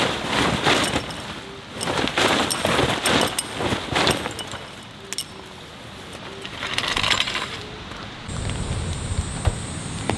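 Heavy rain pattering on a surface, coming in uneven surges. Near the end it gives way to a steadier hiss with one sharp click.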